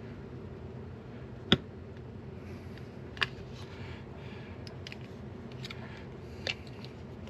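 A flathead tool prying at the seam of a Hivemapper dashcam's plastic housing: a few sharp clicks and ticks as it works in, the loudest about a second and a half in, over a steady low hum.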